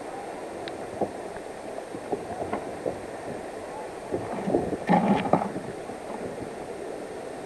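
Muffled handling noise from a covered camera: a steady dull rumble with scattered knocks, and a louder cluster of knocks and rubbing about five seconds in.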